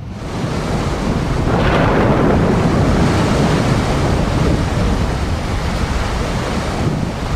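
Sea waves with wind: a loud, steady rush of noise with a deep low end that builds over the first two seconds and then holds.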